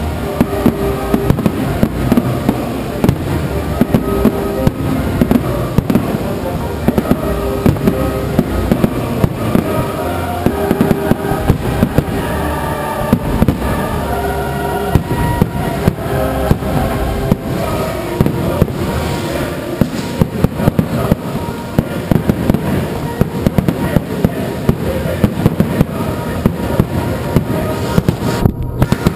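Fireworks display: aerial shells bursting in rapid, dense bangs and crackles, several a second, over music playing throughout.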